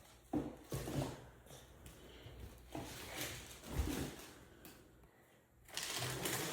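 Several soft knocks and a stretch of rustling near the end, as grocery items are handled and set down.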